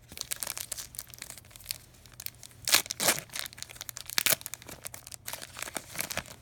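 Wrapper of a hockey trading-card pack being torn open and crinkled by hand: a run of irregular crackles and rips, loudest about three seconds in.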